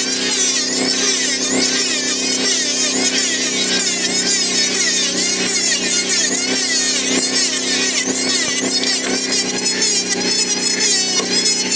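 Modern M2920 electric hand planer running steadily under load, its blades shaving a wooden beam, with a constant motor hum beneath the cutting noise.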